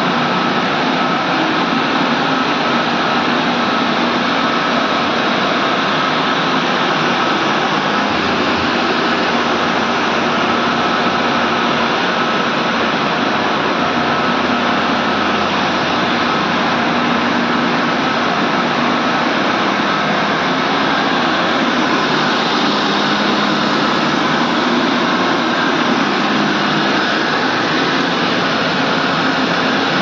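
Forced-draught burner on a fire-tube steam boiler firing, its fan and flame making a loud, steady rushing noise with a faint high whine and a low hum underneath.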